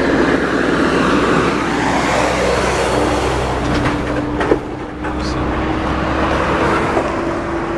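Freeway traffic passing close by: a steady rush of tyres and engines that swells and eases as vehicles go past, with a faint steady hum through the second half.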